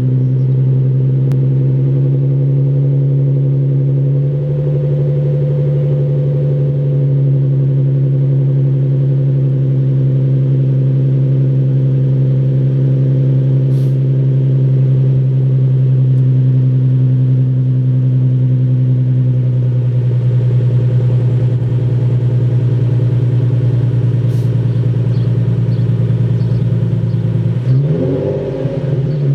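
2009 Nissan 370Z's 3.7-litre V6 idling steadily through an STM axle-back muffler-delete exhaust, then revved briefly near the end.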